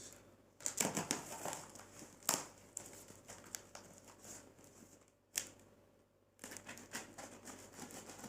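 Packaging of a boxed sewing machine being handled and opened: irregular rustling and scraping, with a few sharp clicks and a short pause about two-thirds of the way through.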